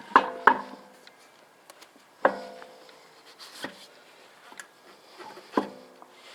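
Metal clanks with a short ring, about five strikes: two close together near the start, then three more spaced out. This is the steel wheel knocking against the hub and wheel studs as the spare tire is worked into place.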